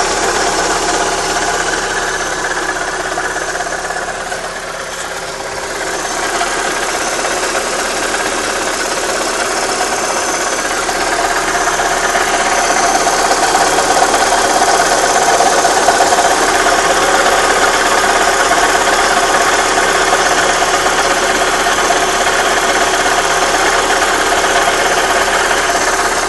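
Opel Astra G 1.6 16V four-cylinder petrol engine running at a steady speed, with no revving. It dips a little about five seconds in and is louder from about twelve seconds on.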